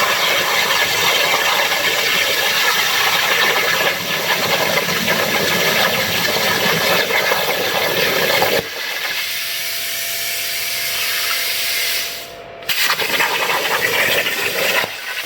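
CNC plasma torch cutting 14-gauge steel plate: a loud steady hiss and crackle of the arc. About nine seconds in it drops to a quieter hiss with a faint steady whine, breaks off briefly near twelve seconds, then comes back at full strength.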